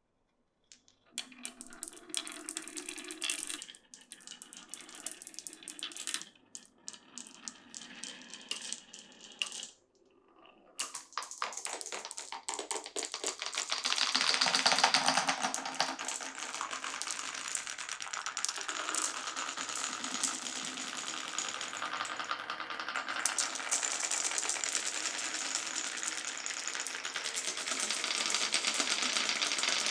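Marbles rolling and clattering through a wooden marble run, as a rapid run of clicks. After a short pause about ten seconds in, a denser, continuous rattle builds up, loudest a few seconds later.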